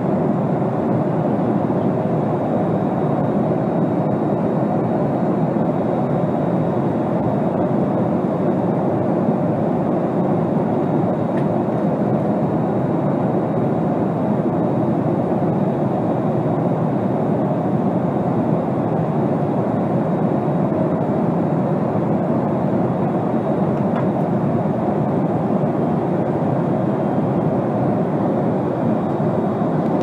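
Jet airliner cabin noise in cruise: the engines and the air rushing past the fuselage make a steady, low, even rush with a faint constant hum, no change in level.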